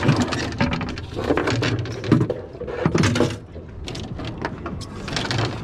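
Irregular clattering knocks and scrapes as a wooden-handled gaff is pulled out from among fishing rods stowed on a boat deck, with rustling between the knocks.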